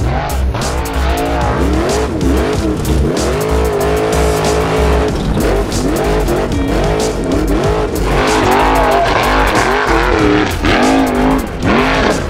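A Formula Offroad 4x4's engine revving hard, its pitch rising and falling again and again as the car climbs, with background music underneath.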